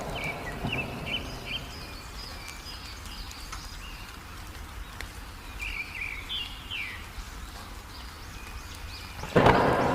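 Wild songbirds chirping in short high phrases, twice, over a steady hiss of rain. About nine seconds in, a sudden loud crack of thunder breaks in.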